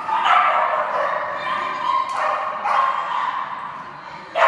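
A dog barking in a run of long, high yelps, about four of them, the last one near the end the loudest.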